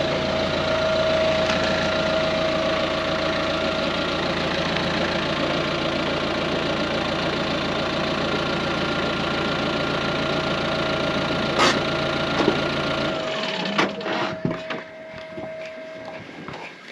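An engine running steadily, which shuts off about 13 seconds in, followed by a few knocks and clatter.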